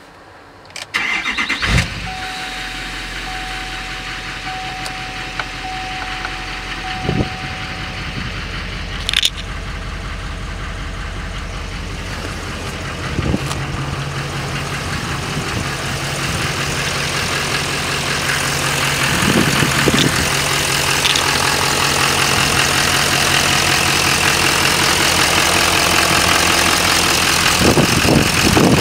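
6.6 L LML Duramax turbo-diesel V8 starting about a second in, then idling steadily. A dash warning chime sounds for about five seconds after start-up. The idle grows louder near the end, heard close at the open engine bay.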